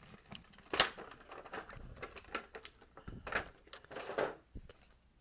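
Clear plastic blister packaging being handled and flexed, crinkling and crackling in a string of irregular sharp clicks.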